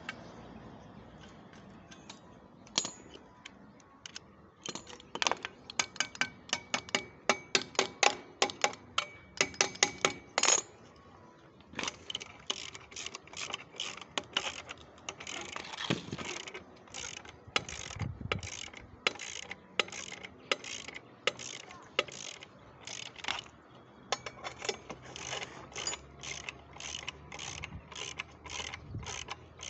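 Hammer blows ringing on metal, about two a second, loudest for a stretch about five to ten seconds in, then lighter and steady.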